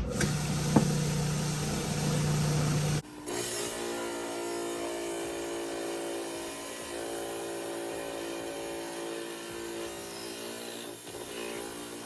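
Diamond trim saw running and cutting through a geode. About three seconds in, the sound changes abruptly from a louder hum to a steadier, quieter whine of several tones.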